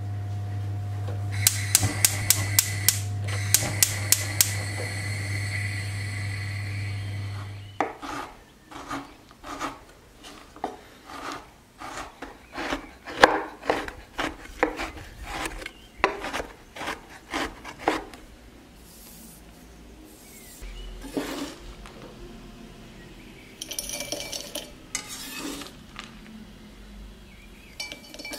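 Large kitchen knife chopping dark chocolate on a wooden cutting board: a rapid run of sharp strikes for about ten seconds. Then the blade scrapes the chopped pieces across the board into a glass jug. Before the chopping there is a steady low hum with a quick run of clicks.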